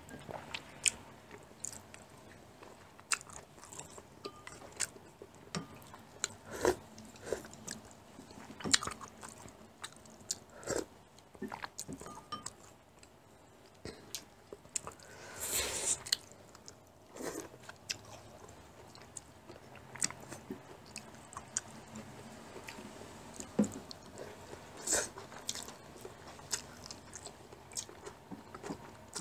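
Close-up eating sounds of japchae glass noodles: chewing and mouth noises, with scattered short clicks of chopsticks against ceramic bowls and plates, and one longer noisy sound about halfway through.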